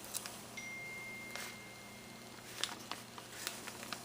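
A few soft, scattered rustles and light clicks of gift wrapping and small items being handled. A faint, thin, steady high tone sounds for about two seconds, starting about half a second in.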